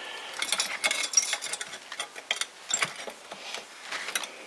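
Small metal parts clicking and clinking as they are handled and fitted, a run of short irregular ticks.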